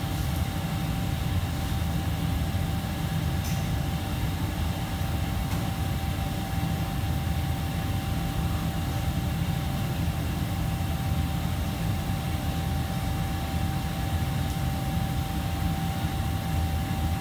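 Steady drone of commercial kitchen fans and equipment: a low rumble with a constant thin whine over it, and a faint click about three and a half seconds in.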